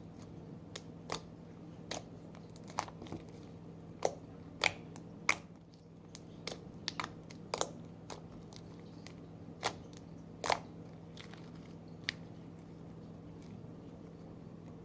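Homemade slime being squeezed and poked by hand, giving off irregular sharp pops and clicks, the loudest ones in the middle and sparser ones near the end.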